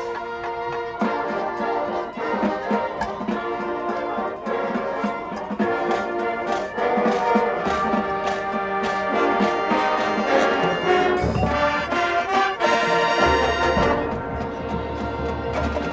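High school marching band playing a brass-heavy show piece: trumpets, trombones and low brass over drums, with the low brass and bass drums coming in heavily about halfway through.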